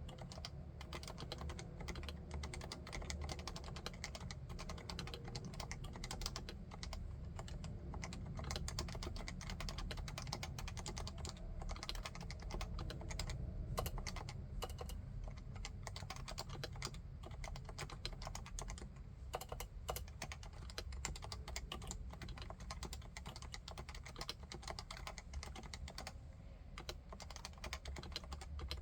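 Continuous typing on a Leopold FC660C compact keyboard with Topre electrostatic capacitive switches: a dense, steady stream of keystrokes.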